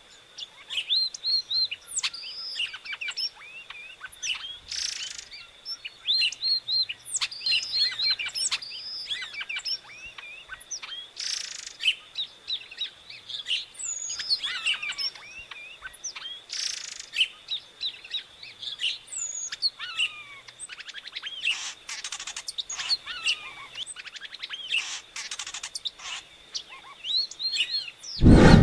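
Epaulet oriole (inhapim, Icterus cayanensis) singing: a fast, varied run of chirps and slurred whistled notes, repeated in phrases. A faint steady high tone runs behind it, and a sudden loud thump comes at the very end.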